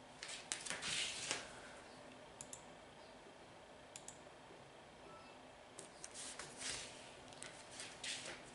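Computer mouse being clicked and slid on its mouse pad: two bunches of quick clicks and rustles, with a few single clicks between.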